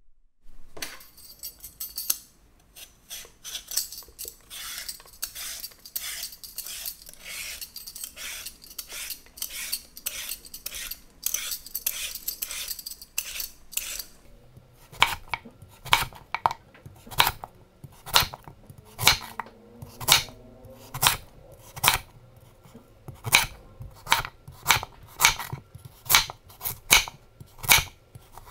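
A vegetable peeler scraping the skin off a raw sweet potato in quick repeated strokes, about two a second. About halfway through this gives way to a kitchen knife slicing the peeled sweet potato into rounds on a wooden cutting board, with a steady series of sharp chops.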